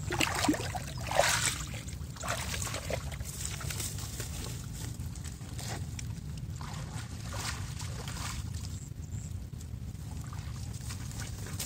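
Hands sloshing and scooping through thick wet mud and shallow water, loudest in the first two seconds, then fainter scattered splashes and squelches. A steady low rumble runs underneath.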